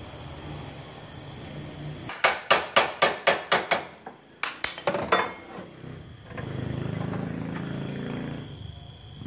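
A hammer tapping on a car's bare steel body panel in two quick runs of sharp metallic strikes, about five a second, each with a short ring. A steady rushing noise follows for about two seconds near the end.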